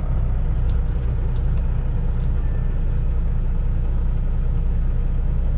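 Semi truck's diesel engine running steadily at low speed, heard from inside the cab as a constant low rumble.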